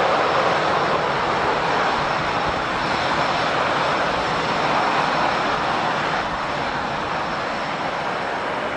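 Airbus A320-214's CFM56 jet engines idling on the ground: a steady rushing noise with a faint high whine, easing slightly near the end.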